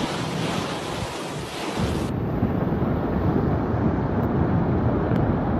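Steady rushing noise, with an abrupt change about two seconds in to a duller sound with more low rumble.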